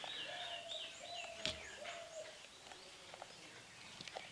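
A bird calling: a quick run of repeated high notes that then slide downward, over a lower held tone, with a sharp click about a second and a half in.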